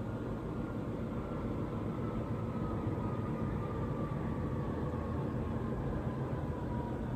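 A steady low rumble with a faint whine that slowly falls in pitch.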